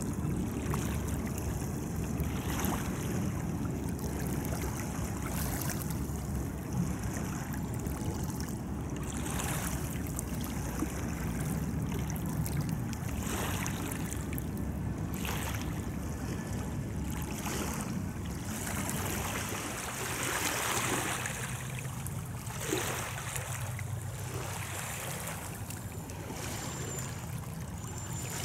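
River water lapping and splashing at the shore, with wind on the microphone coming and going in gusts over a steady low rumble.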